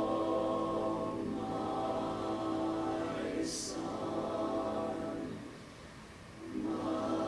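Mixed choir singing unaccompanied in sustained chords, with a sharp sung 's' near the middle. The voices die away to a brief hush about five seconds in, then come back together on a new chord.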